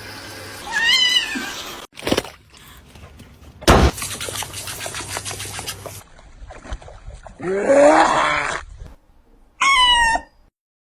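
Cats meowing in a string of short separate calls, one longer drawn-out call in the middle. A sharp knock and a heavy thump with some clatter fall between the calls.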